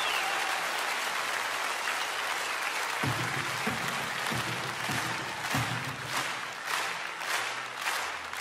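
Concert audience applauding after a live performance. In the last couple of seconds the clapping falls into a steady rhythm of nearly two claps a second. A few low thumps come through in the middle.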